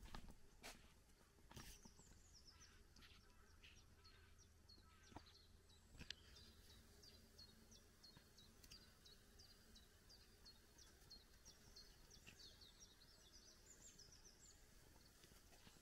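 A small songbird singing faintly: a long, even run of short, high, downward-flicking notes, about three a second. A few soft clicks near the start, likely steps on the lane.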